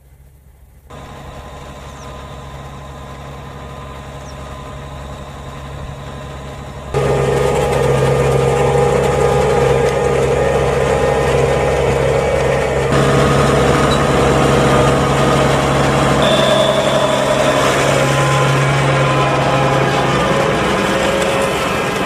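New Holland T7.185 tractor's six-cylinder diesel engine running steadily under load while pulling a five-furrow reversible plough. It starts faint, grows louder over the first seconds, then jumps suddenly louder about seven seconds in and stays loud.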